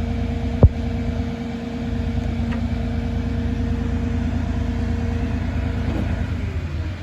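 Crane truck's engine idling steadily with a held hum, and one sharp knock about half a second in. Near the end the hum's tones fall away.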